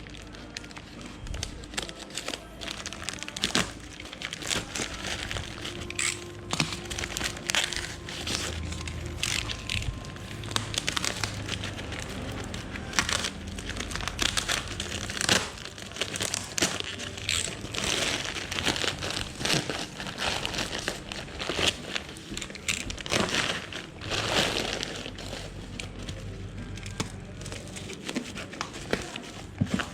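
Packaging being unwrapped from a large parcel: continual crinkling and rustling with scattered sharp clicks and knocks.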